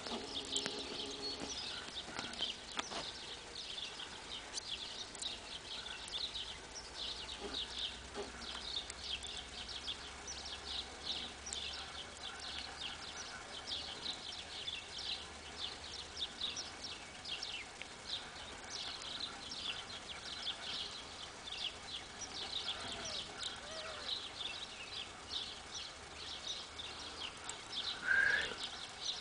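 A dense, continuous chorus of small birds chirping, many short high chirps overlapping. Near the end a louder, lower sound falls in pitch.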